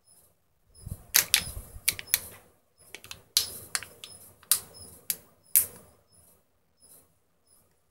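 Sealing lid of a Kinder Joy egg being peeled back off its plastic tray: sharp crinkling crackles. They come thick and loud for about five seconds, then die down to a few faint ones near the end.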